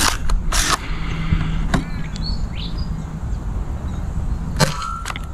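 ZWQ S200 Fire Rat foam-dart pistol firing once, a sharp crack about four and a half seconds in, after a few lighter clicks. Under it runs a steady low rumble, and birds chirp.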